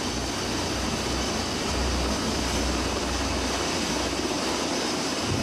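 Jet aircraft engine running on a carrier flight deck after an arrested landing: a steady rush of noise with a low rumble and a faint high whine, growing louder right at the end.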